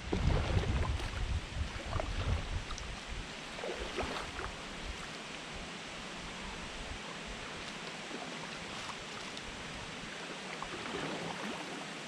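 Kayak paddle blades dipping into calm water in soft, irregular strokes. Wind rumbles on the microphone for the first few seconds, then a steady hiss.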